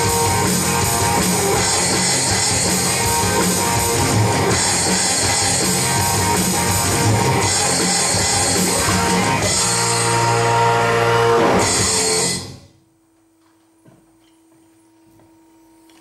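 Hard rock song with electric guitars and drums, played along on a Roland electronic drum kit, ending in a held final chord that cuts off about twelve and a half seconds in. After it, only a faint steady hum and a few light knocks.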